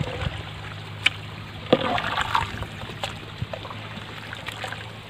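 Long flat metal ladle stirring boiling biryani rice in a large aluminium pot: liquid sloshing and bubbling over a steady low hum, with two sharp knocks of the ladle against the pot about one and just under two seconds in.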